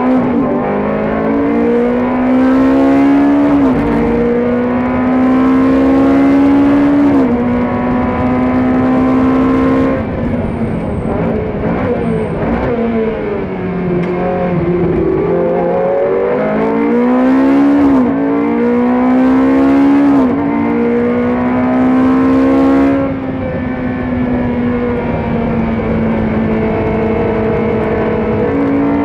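GT3 race car engine heard from inside the cockpit at full race pace, climbing in pitch and dropping sharply at each upshift. About ten seconds in it lifts off and falls in pitch through downshifts for a corner, then pulls up through further upshifts before easing to a steadier note near the end.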